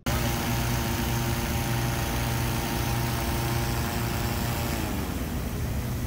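A hot-air balloon's propane burner firing into the envelope with a steady rushing noise, over an engine-driven inflator fan running with a steady hum that drops in pitch about five seconds in.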